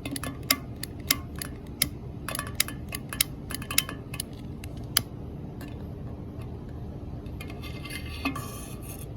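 A run of sharp clicks and light metallic clinks, about two a second for the first five seconds, then a short stretch of rustling near the end.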